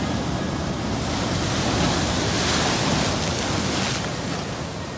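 Ocean surf: a wave breaking and washing up the shore, a rushing hiss that swells about a second in and eases off near the end.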